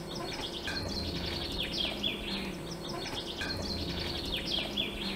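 A small songbird singing a repeated phrase of quick chirps and downward-sweeping notes, over a faint steady low hum. The anchor windlass, switched on for a test, makes no sound: its electric motor is dead.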